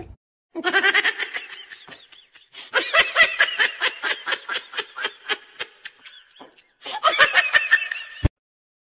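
A person laughing in rapid, high-pitched bursts, in three bouts; it cuts off suddenly near the end.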